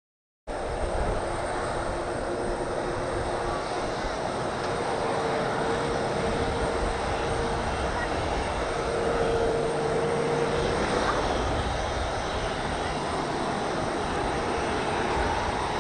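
Boeing 737-800 jet engines running at low power during pushback: a steady rush with a held whine, cutting in about half a second in.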